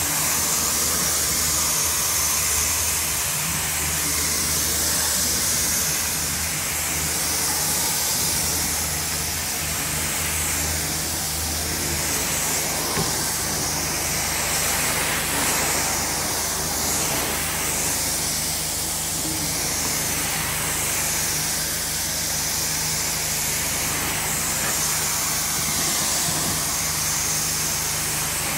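Carpet-cleaning extraction wand pulling water and air up through its head: a steady, loud rushing hiss over the low hum of the extraction machine, swelling and easing slightly every two to three seconds as the wand is stroked across the carpet.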